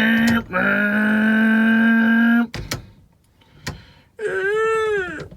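A man's voice drawing out long "whoop" sounds: one long held note, then after a pause with a couple of sharp clicks, a shorter, higher whoop that rises and falls.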